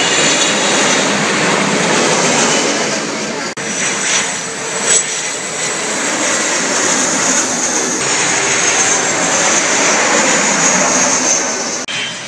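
Jet airliner engines on low final approach, a loud steady roar with a high whine over it. The sound breaks off abruptly about three and a half seconds in and again near the end, where one landing clip cuts to the next.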